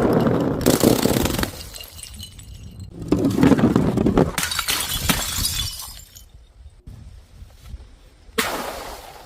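Glass bottles breaking and crunching, in three bouts: one at the start, a longer one beginning about three seconds in, and a short sudden one near the end.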